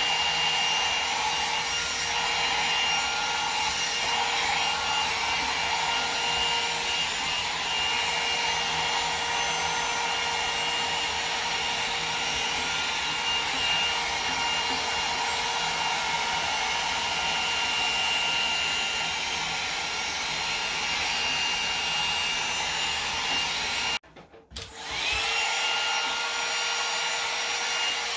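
Conair 2-in-1 hot air styler (a wand hair dryer with a brush head) blowing steadily, with a steady motor whine and the brush rubbing through hair. About 24 seconds in it cuts out for under a second and then spins back up.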